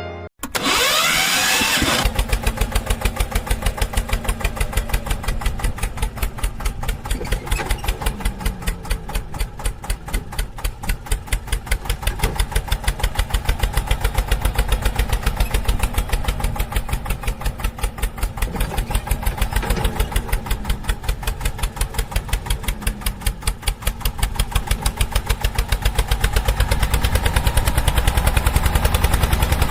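A vehicle engine starting, then running steadily with an even, rapid chugging pulse.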